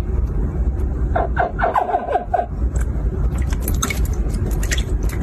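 Hatchling crocodiles chirping: a run of short calls that each drop in pitch, several overlapping, from about one to two and a half seconds in, over a steady low hum. A few light scratchy clicks come near the end.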